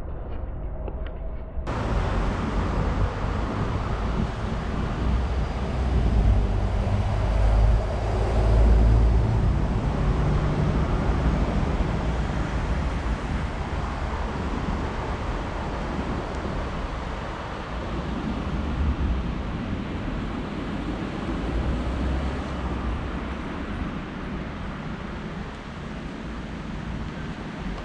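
City street traffic noise, a steady roar of passing vehicles with a heavy low rumble. It gets fuller and louder about two seconds in and peaks around six to ten seconds in.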